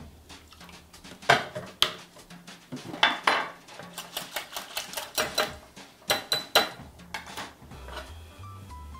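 Metal whisk and utensils clinking against a glass mixing bowl of egg, water and vanilla: a run of sharp clinks, some in quick clusters.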